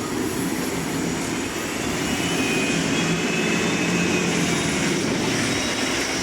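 Steady engine noise with a rushing quality, swelling slightly in loudness over the few seconds.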